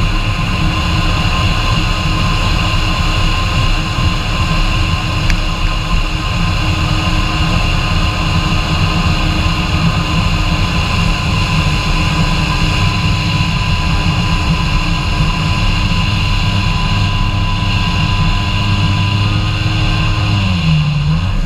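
Kawasaki Ultra 150 jet ski's three-cylinder two-stroke engine running steadily under way, with a brief dip and rise in pitch near the end as the throttle is eased and opened again.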